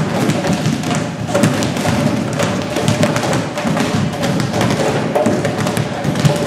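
Many hurleys knocking soft balls and balls bouncing off a wooden floor: a dense, irregular clatter of taps and thuds. Music plays in the background.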